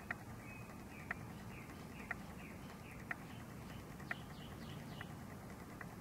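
Night animal calls: a sharp click about once a second, with faint short falling chirps in between, over a low steady background hum.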